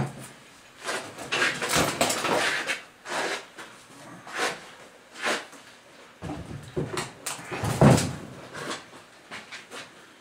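Irregular knocks, scrapes and clunks of wooden and metal cart parts being handled during assembly, with the loudest knock near the end.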